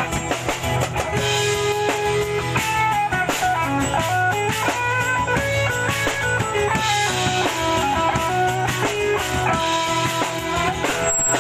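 Instrumental break of a song: guitar playing a melody over a steady drum beat and bass line.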